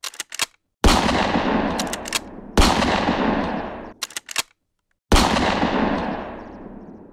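Edited-in gunshot sound effects: short bursts of quick, sharp cracks alternate with three loud blasts. Each blast trails off in a long, echoing fade.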